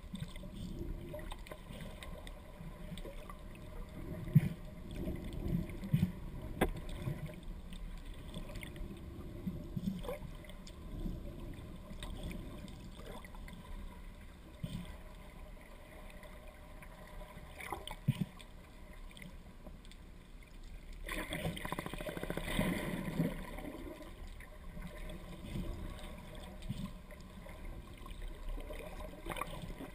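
Muffled underwater ambience heard through a camera housing: a low, continuous water rumble with scattered short clicks and knocks. A louder rush of water noise swells about two-thirds of the way through.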